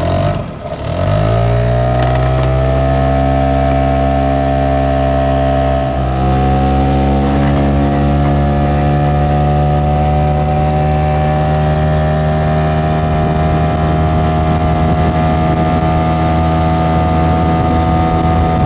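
Hangkai 6 hp two-stroke outboard motor pushing an inflatable dinghy. Its pitch rises over the first couple of seconds as it is opened up, steps up slightly about six seconds in, then holds a steady high note under load.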